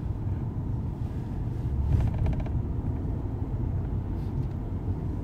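Steady low road rumble of a car driving, heard from inside the cabin. About two seconds in it swells briefly, with a short run of rapid ticking.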